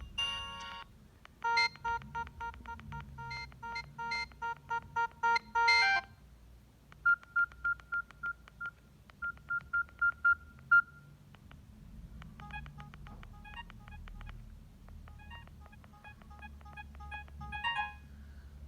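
Samsung SM-B310E phone playing a series of short electronic ringtones through its speaker, one after another. There are three beeping tunes with short pauses between them; the middle one is a rapid run of high beeps.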